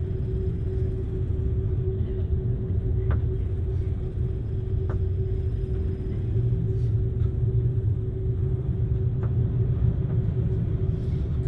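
Storm wind and a ferry's machinery: a loud, steady low rumble with a constant hum over it, and three or four faint clicks.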